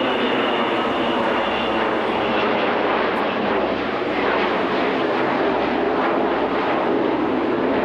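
Aircraft engines droning steadily as a plane flies past at an air show display.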